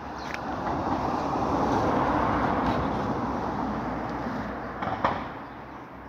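A road vehicle passing by: its engine and tyre noise swells to a peak about two seconds in, then fades away. A short sharp click is heard near the end.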